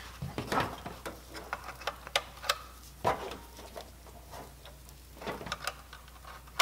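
Scattered light clicks and taps from a plastic Ring Alarm base station being handled and turned over while an Ethernet cable plug is fitted into its port, with a sharper click near the end.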